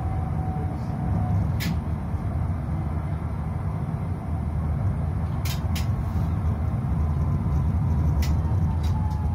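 Tram running on street track, heard from on board: a steady low rumble of wheels and traction motors. A few sharp clicks are heard, and near the end a faint whine falls slightly in pitch as the tram slows towards a stop.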